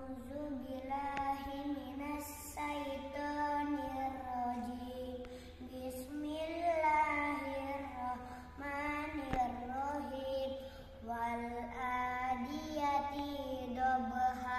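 A young boy chanting Quran recitation in Arabic, drawn-out melodic phrases with long held notes and short breaths between them, over a faint steady low hum.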